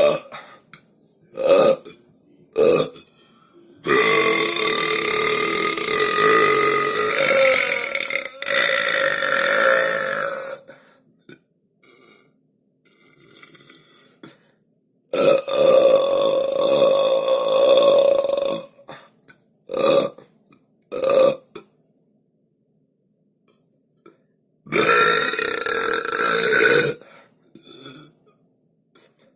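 A string of separate human burps: several short ones and three long, drawn-out belches lasting a few seconds each, the longest about six seconds. Brief silent pauses fall between them.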